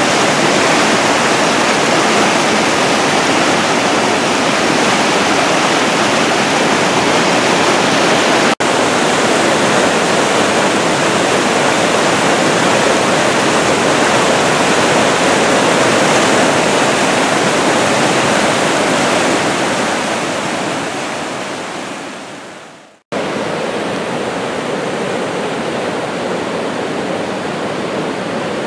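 Loud rushing of a brook in flood, its whitewater rapids churning. A little past 20 seconds in it fades out, then comes back as a softer, steadier rush of fast floodwater.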